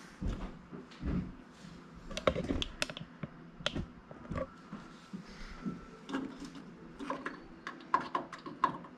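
Irregular small clicks and taps of a hand tool against the hard plastic parts of a microwave turntable motor while a tight-fitting piece is worked at to pry it loose. The taps come thicker in the second half.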